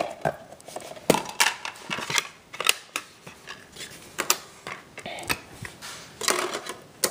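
Plastic DVD case handled and opened: an irregular run of sharp plastic clicks and taps, as the case snaps open and the disc is pulled off its centre hub.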